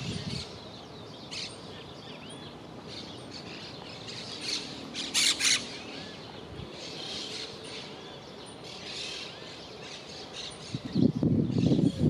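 Monk parakeets calling with scattered short chirps and squawks, some sliding in pitch. A pair of louder, harsh squawks comes about five seconds in.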